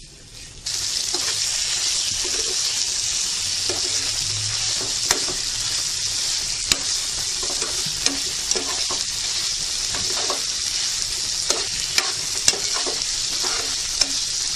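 Marinated chicken pieces sizzling in oil and butter in a frying pan, with a spatula scraping and tapping the pan as they are stirred. The steady sizzle starts suddenly under a second in, with scattered clicks from the spatula throughout.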